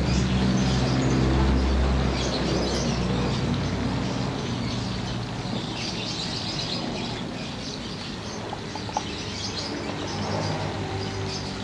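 Small birds chirping over a steady low hum.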